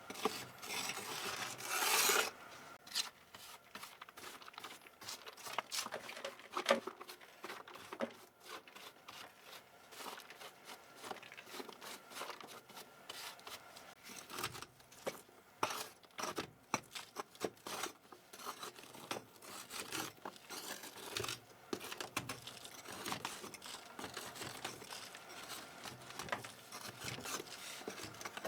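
Hands working on a dirty computer keyboard: rubbing and scraping strokes with many small clicks of plastic keys. The loudest is a long scratchy rub near the start.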